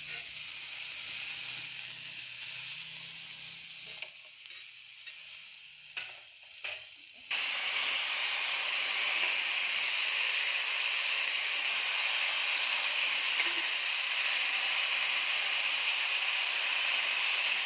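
Food sizzling on a hot iron pan: a moderate sizzle that dies down over the first few seconds, with a few soft knocks. About seven seconds in, a loud, steady sizzle starts as the vegetables in cream sauce sizzle on a preheated sizzling plate.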